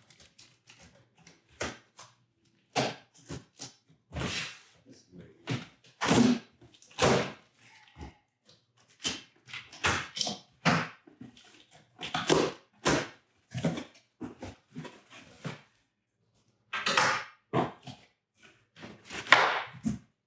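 Packing tape being slit and torn off a cardboard shipping box: a series of short ripping and scraping rasps, louder ones near the end as the box flaps come open.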